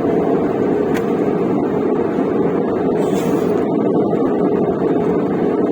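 Steady drone of engine and airflow noise inside the cabin of an Airbus A320-200 in flight.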